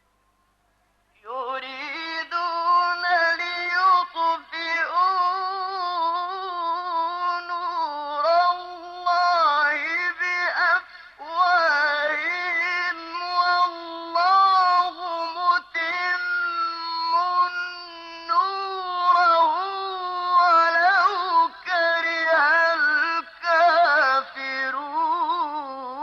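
A solo male voice chanting Quranic recitation (tajweed) in long, ornamented held phrases that waver in pitch. It starts about a second in and stops briefly for a breath near the middle.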